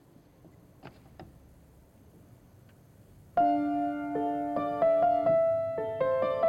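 A grand piano begins playing a little past halfway through, opening with a loud struck chord that rings on, followed by further notes and chords at a moderate pace. Before it, near quiet with two faint clicks about a second in.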